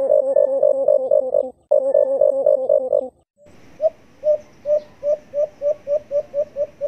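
Recorded alimukon dove calls played as a bird-trapping lure. A fast run of repeated coos stops about three seconds in, and after a short pause comes a series of separate coo notes that speed up toward the end.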